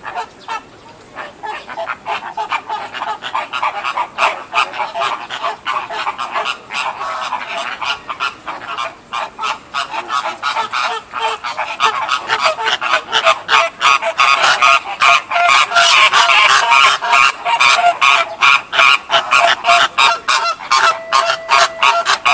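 A flock of American flamingos honking: many calls overlap in a fast, unbroken chatter that grows louder a little past halfway.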